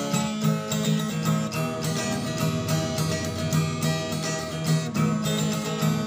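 Intro music led by a strummed guitar, with a steady, even rhythm.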